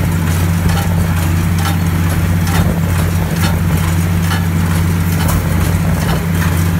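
New Holland small square baler with a bale thrower running behind a tractor in the hay field: a steady engine drone with a light knock repeating about once a second from the baler.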